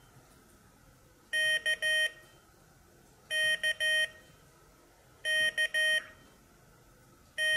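Morserino-32's loudspeaker beeping its Morse sidetone as the letter K (dah-dit-dah) is keyed on the paddle. It sounds three times, about two seconds apart, with a fourth K starting near the end. The long pauses between the letters are the wide letter spacing of a beginner's practice group.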